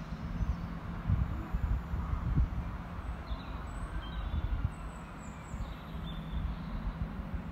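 Railway platform ambience: a low rumble with irregular gusts of wind buffeting the microphone, and a few faint high chirps from birds midway through.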